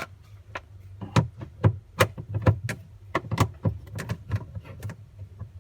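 Irregular clicks and knocks of a screwdriver and plastic parts as screws are taken out of a refrigerator's interior panel, over a steady low hum.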